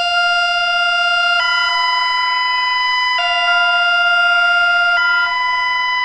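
Electronic emergency-alert attention tone: a loud, steady electronic tone that switches between a lower and a higher pitch about every two seconds, low-high-low-high, then stops abruptly.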